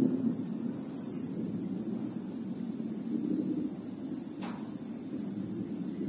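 Night insects trilling in a steady high-pitched chorus over a low rumbling noise, with a single faint click about four and a half seconds in.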